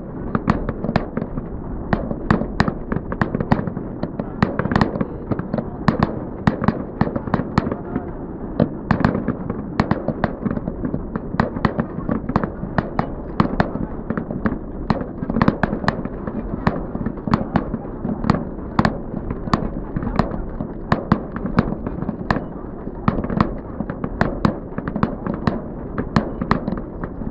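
Fireworks display going off: bangs and crackles of bursting shells in quick succession, several a second, over a steady low rumble.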